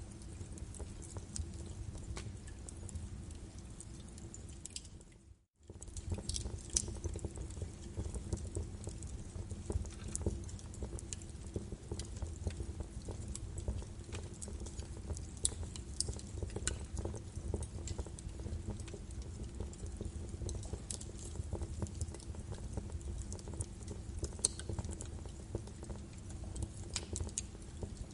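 Birch wood fire in a fireplace crackling, with frequent sharp pops over a steady low rumble of burning. The sound fades out to a moment of silence about five seconds in, then resumes.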